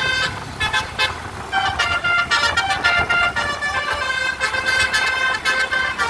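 Telolet musical horn playing a tune of short, changing notes over a low engine and traffic rumble.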